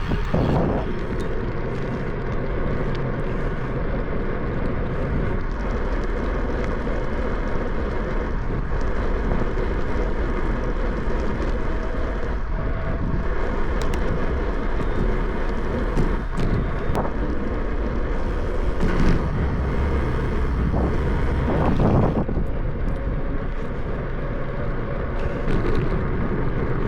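Steady wind on the microphone and tyre and road noise during a bicycle ride, with a few brief knocks along the way.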